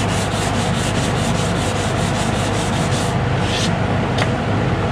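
Hand sanding of a fiberglass boat hull's gelcoat with 220-grit Velcro-backed sandpaper on a 3M foam sanding block, in quick, even back-and-forth strokes that knock down a rough raised edge. The strokes stop about three seconds in, followed by a brief scrape and a click.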